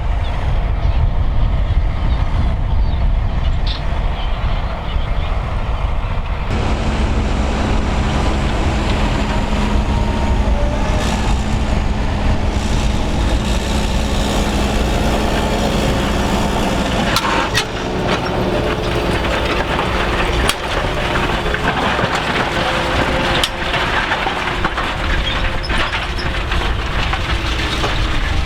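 Fendt 724 tractor's six-cylinder diesel working under load as it pulls a five-furrow plough up a steep bank, with wind rumbling on the microphone. About six seconds in the sound turns brighter with a steady hum, and through the second half sharp clicks and cracks come through.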